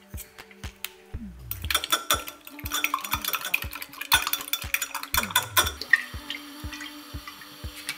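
Eggs being beaten with a metal fork in a glass mug: rapid clinking of metal against glass, starting about a second in and stopping near six seconds.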